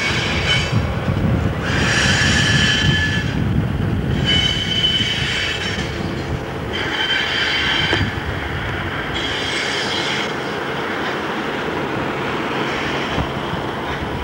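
Freight car wheels squealing on curved track as the train is shunted, in repeated high-pitched squeals about a second long every two to three seconds, fading near the end. A low rumble from the moving train runs beneath.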